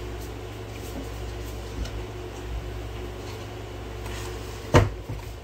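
Steady low hum of the room with a few faint handling noises, and one sharp knock near the end as something is set down on the kitchen counter.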